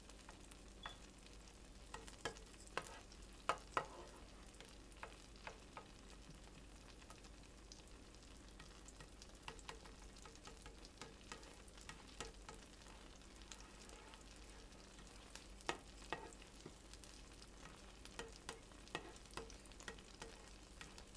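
Butter melting and faintly sizzling in a nonstick frying pan, stirred with a spoon that scrapes and taps against the pan now and then. A few louder taps come about three to four seconds in and again around sixteen seconds.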